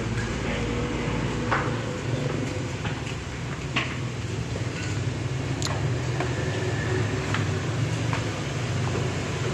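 Steady low workshop hum with scattered sharp clicks and light knocks from hands and tools working at a car's front wheel and suspension.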